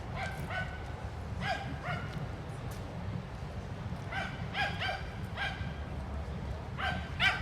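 An animal giving short, high, yelping calls, mostly in quick pairs, repeated every second or so and loudest near the end, over a steady low city rumble.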